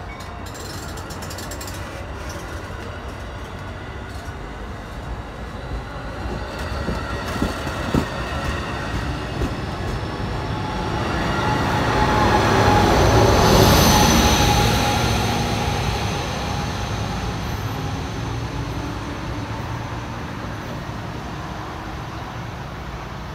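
Amtrak Pacific Surfliner bilevel passenger train rolling out past the platform, a steady rumble of wheels on rail. It swells to its loudest a little past halfway as the end of the train goes by, then fades as it pulls away. A few sharp clicks come about seven to eight seconds in.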